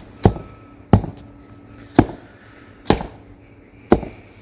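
Five hammer blows about a second apart, striking wooden stakes, each with a short ring.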